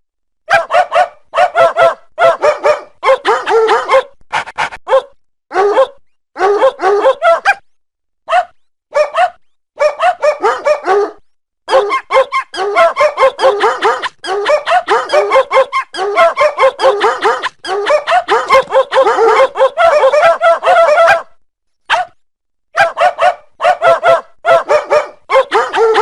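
A dog "singing": quick runs of short, wavering howl-like yips and whines that slide up and down in pitch, several a second. The runs break off abruptly into brief silent gaps.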